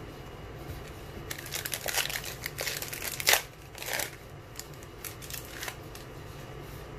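A 2020 Panini Select foil card pack's wrapper crinkles as it is torn open by hand. The crinkling is loudest about three seconds in, with a few lighter crinkles later.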